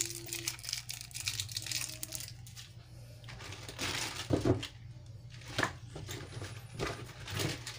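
Rustling and light clicks of hands handling ingredients and their plastic packaging in and around a metal cooking pot, with a few louder knocks. A steady low hum runs underneath.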